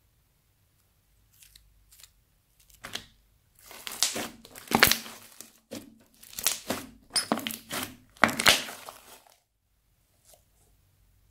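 Crunchy slime crackling and crinkling as hands squeeze and stretch it. A few separate pops come first, then a long run of dense crackling that stops abruptly, followed by a couple of faint ticks near the end.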